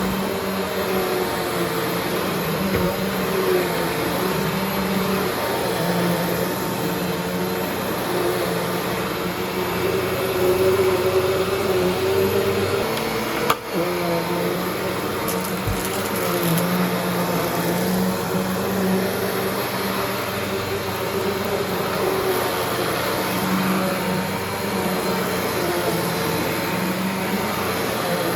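Eureka Alimta vacuum cleaner running steadily while vacuuming, its motor hum wavering slightly, with one sharp knock about halfway through.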